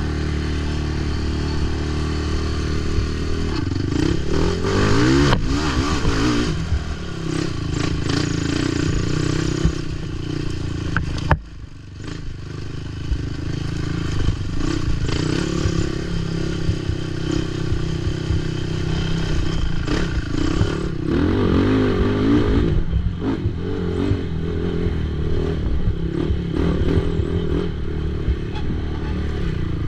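Racing ATV engine running hard over rough cross-country terrain, revving up and down as the throttle opens and closes, with clattering and scraping from the quad. About eleven seconds in there is a single sharp knock and the engine sound briefly drops before picking up again.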